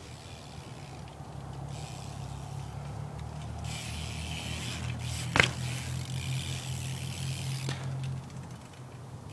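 BMX bike tyres rolling on pavement, building up and then fading, with one sharp knock about five seconds in and a lighter click near the end.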